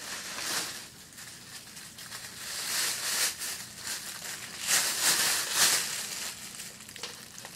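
Thin plastic shopping bag being handled and crinkled, in irregular bursts of rustling, loudest about five seconds in.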